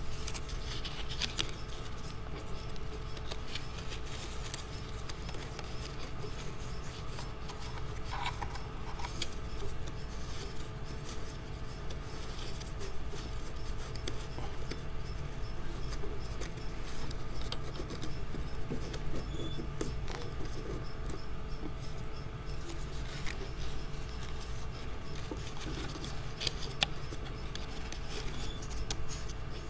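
Strips of watercolor paper rustling and scraping as they are woven over and under each other and slid into place by hand, with scattered light taps. A steady low hum runs underneath.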